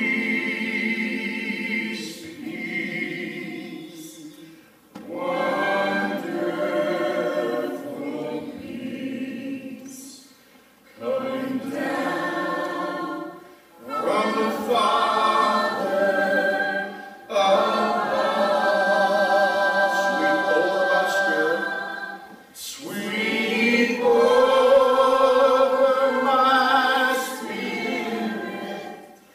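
Small group of women's voices singing a song in harmony, in long phrases with wavering held notes and brief breaks between them.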